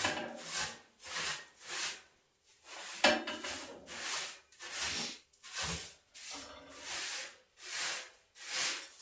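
A broom sweeping debris off a stove in a dozen or so short brushing strokes, about one and a half a second, with a brief pause partway through.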